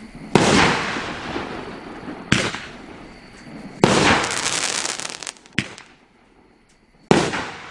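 Street Sweeper 500g firework cake firing shells that burst with loud breaking bangs, five in about seven seconds, each echoing away. A spell of fast crackling follows the third bang.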